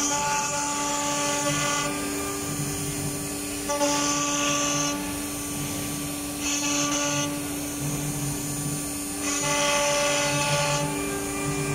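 Acctek AKM1530C1 ATC CNC router running with a steady spindle whine. Four times, for about a second each, a hiss of cutting noise rises over the whine as the bit works through the clamped board.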